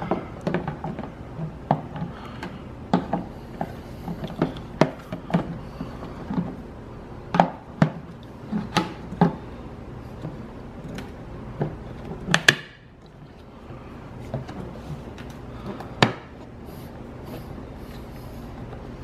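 Hard plastic clicking and knocking as the rear cover of a BMW E90 headlight housing is handled and pressed back onto the housing, with two sharper clicks in the second half.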